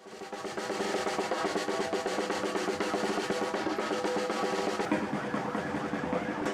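Drums beaten in a fast, dense roll, with sustained pitched sounds over them. The sound fades in over the first half second.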